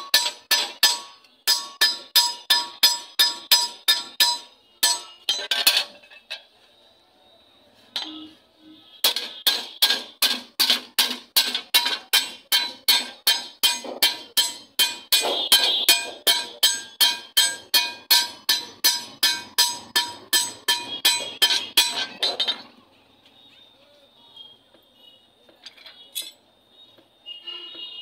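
Blacksmiths hammering a blade on an anvil: rapid ringing metal-on-metal strikes, about three to four a second. The strikes break off for about three seconds a quarter of the way in, resume in a long run, and stop about three-quarters through.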